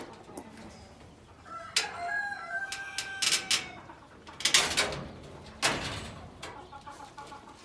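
Ardi goats bleating at close range: a few calls starting about two seconds in, some clear and pitched, the loudest rough and hoarse around the middle.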